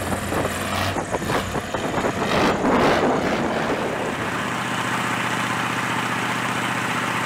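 V8 diesel truck engine, converted to drive a wooden long-tail passenger boat, running hard under way, with the rush and spray of water along the hull. From about four seconds in it settles into a steadier drone over the hiss of the churning wake.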